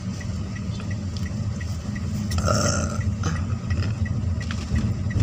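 Low, steady rumble of a car's engine and tyres heard from inside the cabin while driving, with a faint high ticking about five times a second. A short, louder sound comes about halfway through.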